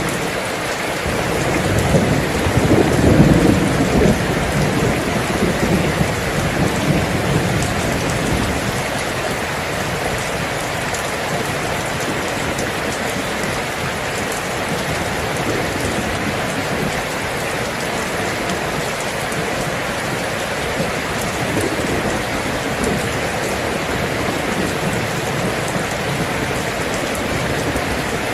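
Steady heavy rain falling, with a low rumble of thunder swelling in the first several seconds, loudest about three seconds in, then fading back into the rain.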